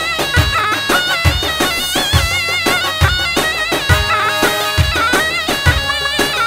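Kurdish folk dance music: a reedy, ornamented wind-instrument melody over a heavy drum beat that falls a little under once a second.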